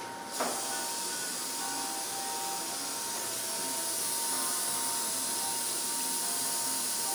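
Surgical suction aspirator drawing air and fluid at the surgical site, a steady high hiss that switches on with a short click about half a second in.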